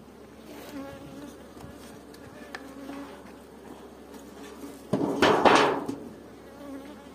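Honeybees of the Strandzha (Istranca) strain buzzing, a steady hum whose pitch wavers slightly. About five seconds in there is a louder clatter lasting about a second.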